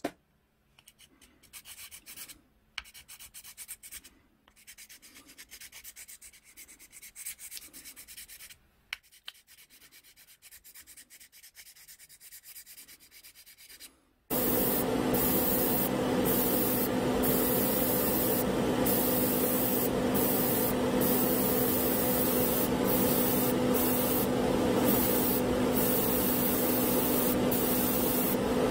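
Fine #1000-grit sanding stick rubbed over a small plastic model part in quiet clusters of strokes. About 14 seconds in, a loud steady hum with hiss suddenly starts and keeps going: the exhaust fans of a paint spray booth running.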